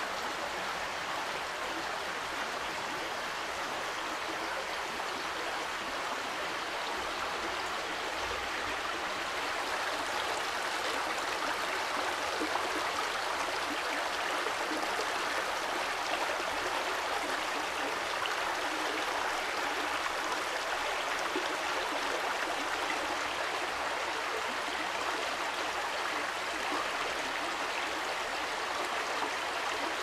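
Shallow mountain stream running over stones: a steady rush of water.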